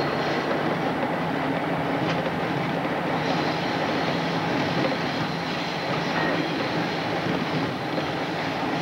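Diesel locomotive running while the train rolls along the track: a steady engine drone under wheel and rail noise.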